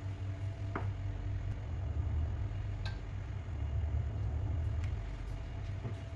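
Steady low hum and rumble of a portable electric hob heating a pan of liquid toward the boil, with a few light clicks as a spoon adds spice powder.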